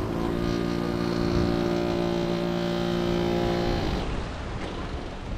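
A motor engine running at a steady, unchanging pitch over wind and surf noise; the engine sound stops about four seconds in.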